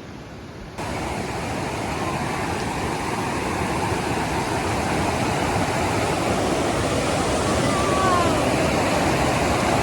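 Steady rush of fast-flowing water, starting about a second in and slowly growing louder. A faint voice is heard briefly about eight seconds in.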